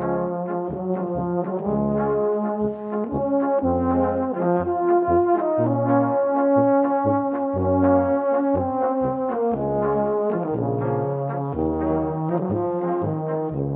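Background music played by a brass ensemble: several brass parts sounding together with changing notes over a low bass line that pulses in a steady rhythm.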